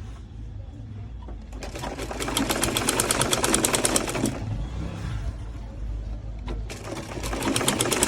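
Sewing machine stitching in two runs of rapid, evenly spaced needle strokes: the first from about two to four seconds in, the second starting near the end.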